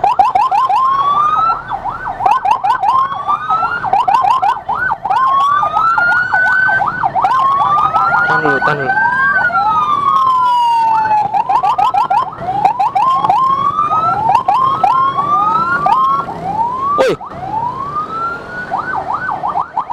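Ambulance siren, loud and close, cycling through quick rising yelps several times a second, with slower rising wails and one long falling sweep about halfway through. A single sharp click sounds near the end.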